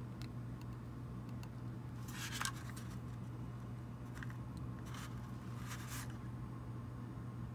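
Small handling sounds as steel tweezers place a tiny strip of reflective tape on a plastic model freight car: three short scrapes and rustles, about two, five and six seconds in, with a few faint ticks, over a steady low hum.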